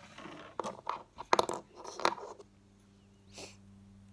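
Small plastic Lego minifigure parts being handled, giving a rustle and then a quick cluster of sharp clicks over the first two seconds, loudest around the middle of that cluster. After that only a faint steady hum remains.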